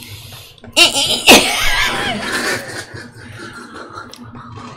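People laughing loudly for about two seconds, starting just under a second in, then fading to quieter background noise.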